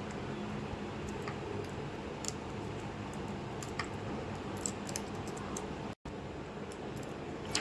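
A few faint, scattered clicks and ticks of small laptop parts being handled, as when the display cable connector is plugged in during a screen replacement, over a steady background hiss.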